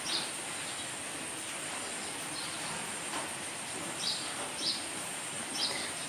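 Outdoor ambience: a steady high insect drone over background noise, with short, falling bird chirps, one at the start and three more in the last two seconds.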